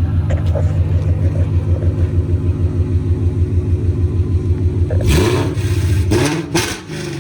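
2018 Ford Mustang GT's 5.0 V8 with the exhaust dumped straight from the headers (X-pipe, 3-inch dumps), idling with a loud, evenly pulsing note, then revved a few times in quick succession near the end before settling back down.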